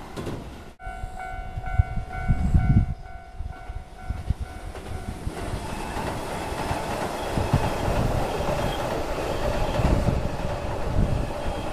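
A Japanese level-crossing alarm rings in evenly repeating strokes. From about five seconds in, a Keihan electric train passes over the crossing, a steady louder running noise that masks the bell.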